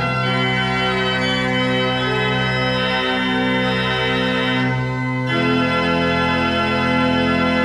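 Pipe organ playing sustained, full chords. It shifts to a brighter, fuller chord about five seconds in.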